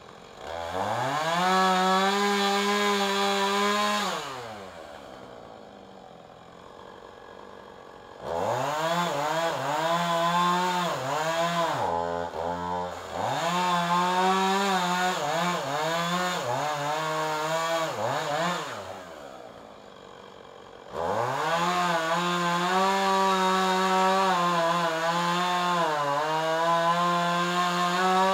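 Two-stroke chainsaw revved to full throttle three times, dropping back to idle in between, cutting into a tree limb. The engine note rises sharply at each squeeze of the throttle, then sags and wavers as the chain bites into the wood.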